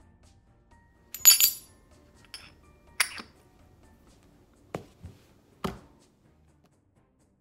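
Solid brass Okito box and brass wand clinking: two sharp, ringing metal clinks about a second and three seconds in, with a lighter one between. Then three duller knocks on the tabletop a few seconds later as the wand is laid down.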